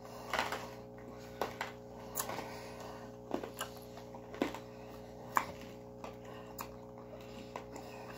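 Mouth sounds of someone sucking on a hard sour candy: scattered wet clicks and smacks at irregular intervals, over a faint steady hum.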